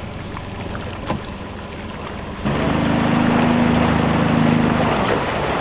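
Mercury outboard motor running at low speed, then throttled up about two and a half seconds in to a louder, steady drone that eases back near the end as the boat is powered up onto its trailer.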